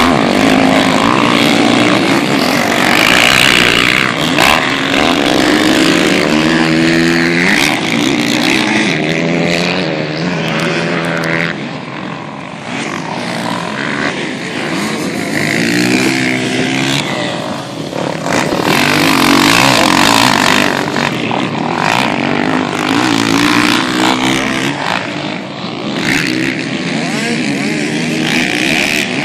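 Motocross dirt bikes riding the track, engines revving up and shifting through the gears again and again. The sound swells and dips as the bikes come near and move away.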